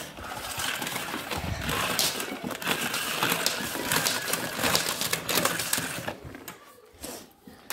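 Rustling, knocking and clicking of hands and camera handling a Numatic Henry HVR200A vacuum cleaner and its cord on a carpet. It is irregular and dies away about six seconds in, with no steady motor hum: the vacuum is not running.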